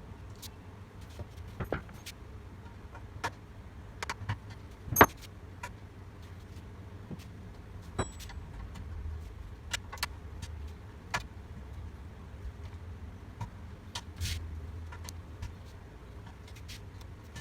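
Hand tools and metal parts of a cylinder mower's height adjuster clicking and knocking at irregular intervals, with one sharp metal knock about five seconds in, over a low steady rumble.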